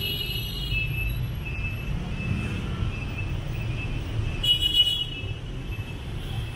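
Steady low rumble of street traffic, with one brief high-pitched tone about four and a half seconds in.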